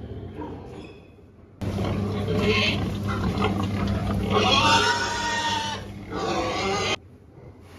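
Pigs grunting and squealing, with a long high-pitched squeal about four and a half seconds in, over a steady low hum. The sound starts abruptly about a second and a half in and cuts off near the end.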